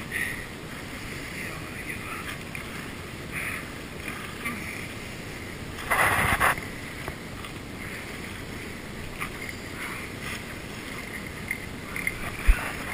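Steady wind noise on the microphone over open water, with a loud rush about halfway through and a sharp knock near the end.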